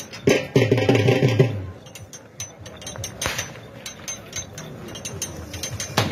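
Rapid, irregular clicking rattle of a wheeled iron rig being dragged around a dirt pit by a pair of yoked bulls. A brief burst of music sounds over it about half a second in.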